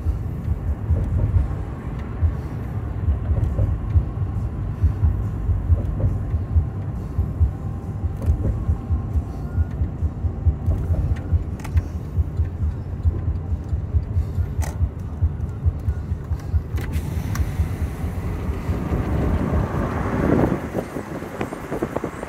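Road noise inside a moving car: a steady low rumble of tyres and engine, with a louder rushing swell near the end.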